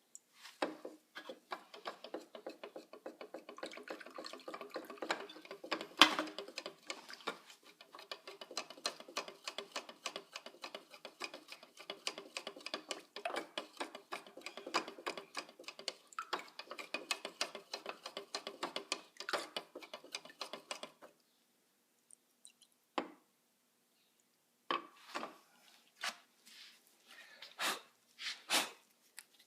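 Paint being mixed in a container: a quick run of clinks and scrapes with a slight ring for about twenty seconds, one sharper knock about six seconds in, then it stops and a few separate clinks and taps follow near the end.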